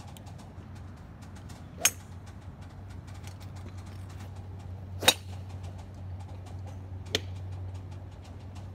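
A golf club strikes a ball once with a sharp crack about five seconds in. Two other sharp clicks come about two and seven seconds in, over a steady low hum.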